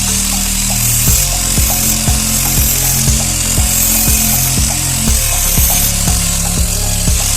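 Background music with a steady beat of about two beats a second that comes in about a second in, over sustained low bass notes that change pitch.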